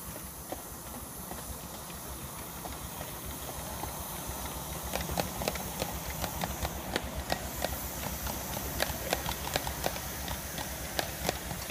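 Ride-on miniature steam locomotive hauling a passenger train past, with steam hissing and a run of sharp clicks from the wheels crossing rail joints. The clicks get louder and more frequent from about five seconds in as the train draws level.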